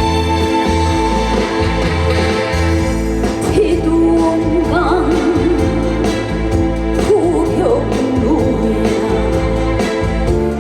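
Live pop-style trot song: a band plays, and a woman's singing voice with vibrato comes in about three and a half seconds in.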